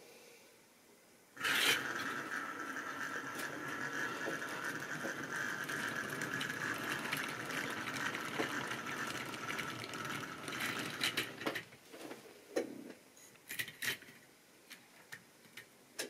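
Tri-ang OO gauge model goods train running past close by: a steady whirring rumble of the locomotive's electric motor and the wagon wheels on the track, starting suddenly about a second and a half in. After about eleven seconds it fades into scattered clicks of wheels over rail joints and points.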